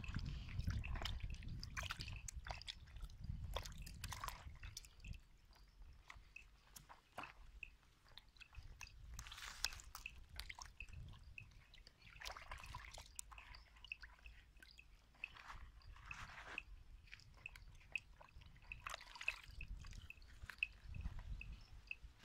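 Hands sloshing and splashing water in a plastic basin while handling fish, with irregular small splashes and drips.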